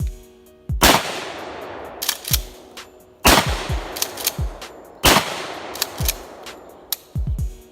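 Remington 870 pump-action shotgun fired three times, each a loud blast with a long trailing echo, the shots about two and a half and then two seconds apart, with lighter knocks in between.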